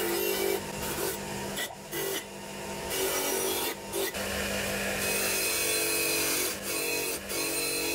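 Bench grinder's wire wheel scraping over a cast metal chainsaw housing to clean it, with the grinder motor humming steadily underneath. The scraping eases briefly a few times as the part is lifted and turned against the wheel.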